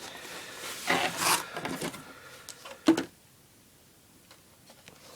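Rubbing and scraping as the cable box and its packaging are handled, with one sharp knock about three seconds in.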